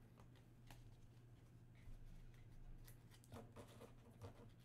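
Near silence: a low steady hum with a few faint clicks and rustles of trading cards in hard plastic holders being handled, most of them in the second half.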